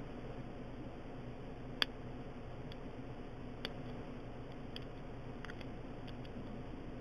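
Faint, sparse metallic clicks of a short hook pick and tension tool working the pin stack of a 30 mm Brinks padlock during single pin picking, with a sharper click about two seconds in and another near the middle.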